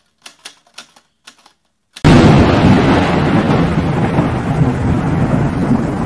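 Intro sound effects: a handful of short clicks, then about two seconds in a sudden loud boom that carries on as a heavy, thunder-like rumble.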